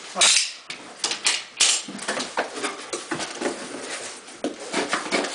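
Cardboard shipping box and its packing being handled and pulled open: an irregular run of rustles, scrapes and knocks, loudest just after the start and about a second and a half in.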